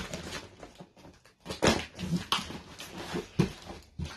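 Scissors cutting through packing tape and cardboard on a large box, giving irregular scrapes, rips and short squeaks.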